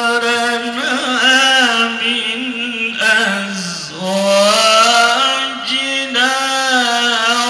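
A man reciting the Quran in the melodic tilawah style through a microphone and PA. He holds long, ornamented notes that bend up and down, with a brief dip in pitch and loudness about three and a half seconds in.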